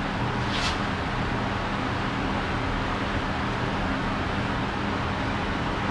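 A steady low hum and rushing noise from a running machine, even throughout, with one brief hiss about half a second in.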